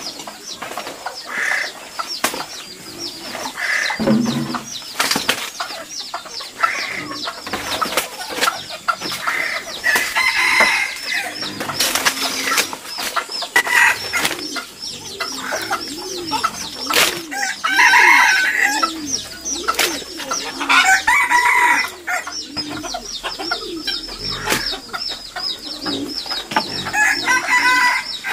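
Chickens clucking and calling again and again around the yard, over crisp rustling and crackling of fresh banana leaves being handled and pressed into a woven bamboo basket.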